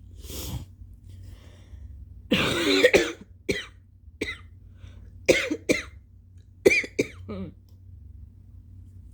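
A person coughing wet, phlegmy coughs from chest congestion: one long harsh cough a couple of seconds in, then a string of short coughs, some in quick pairs.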